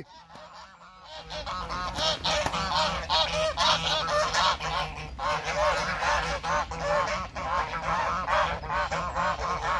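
Domestic geese honking excitedly in an attack, many short calls overlapping in quick succession, starting about a second in.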